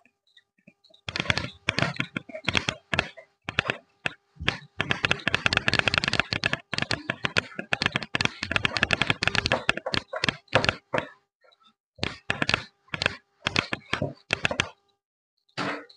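Cloth duster rubbing over a whiteboard in rapid back-and-forth strokes, erasing it, with a short pause about eleven seconds in and stopping near the end.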